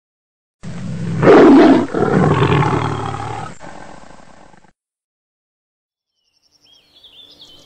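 A large animal's long, loud bellowing call that starts suddenly, is loudest in its first second and fades out over about four seconds.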